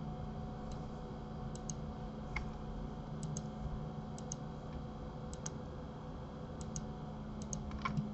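Computer mouse clicking: about six quick pairs of sharp clicks spread out, with a few more close together near the end, over a steady low electrical hum.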